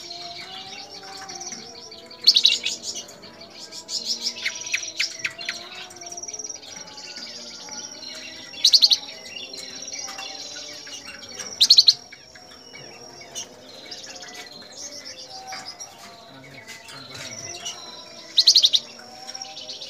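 Caged flamboyan (Sunda bush warbler) singing in several loud, fast chattering bursts a few seconds apart, with thin high notes held between them.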